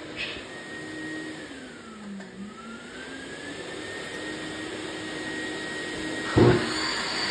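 Shop dust extractor running steadily, its motor pitch sagging about two seconds in and climbing back up. Two short, loud bursts of noise near the end.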